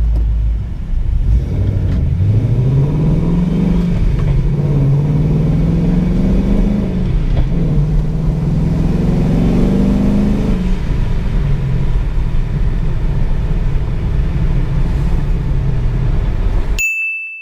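Turbocharged Ford Mustang GT V8 accelerating hard, its pitch rising through the revs three times in a row and then running steadily. The sound cuts off near the end, leaving a short high steady tone.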